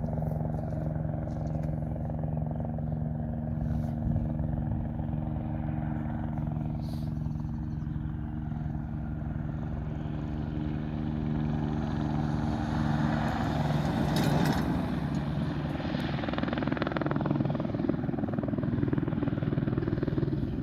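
AS350 Écureuil helicopter running, its single turbine and rotor giving a steady hum that, past the halfway point, gives way to a louder rushing sound, loudest about two-thirds through.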